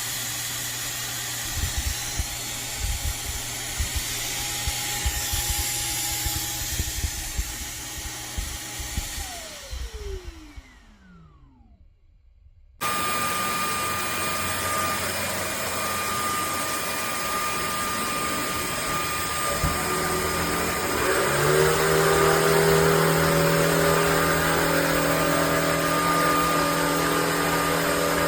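Shark cordless stick vacuum motor running steadily, then spinning down and stopping about ten seconds in. After a short lull, a different steady motor sound starts abruptly, then rises in pitch and grows louder about eight seconds later.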